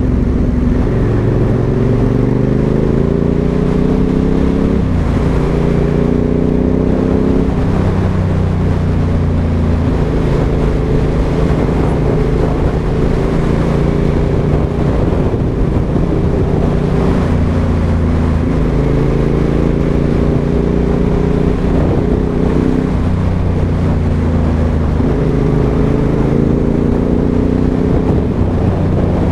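Aprilia Dorsoduro 1200's 90-degree V-twin with a Pipeworx exhaust, pulling through the gears. The engine note climbs steadily and drops sharply at each upshift, three times, with about ten seconds of steady cruising in the middle.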